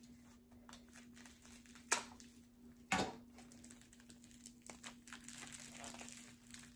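Bubble wrap being unwrapped by hand: faint crinkling and crackling of plastic, with two sharper clicks about two and three seconds in.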